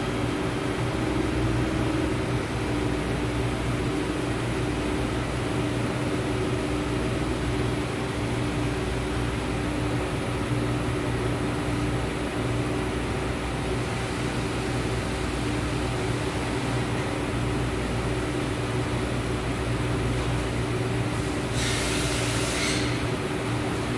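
Steady mechanical hum of a powered-up CNC machine tool, with a low drone and a couple of steady tones. A short burst of hiss, about a second long, comes near the end.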